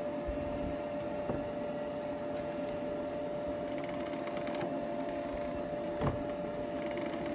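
Steady mechanical hum with a constant tone, while the ATV's steering is turned from side to side, working the newly fitted steering damper in and out. There is a light knock about a second in and a louder thump about six seconds in.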